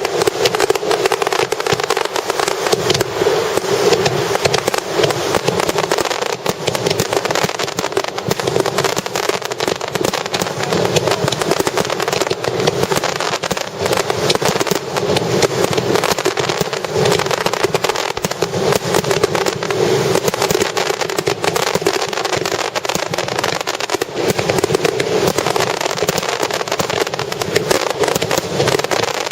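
Fireworks star mine: a rapid, continuous barrage of aerial shells bursting, a dense run of booms and crackling with no break.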